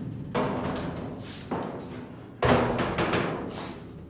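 Background music with a heavy percussive hit about every second, each ringing out and fading.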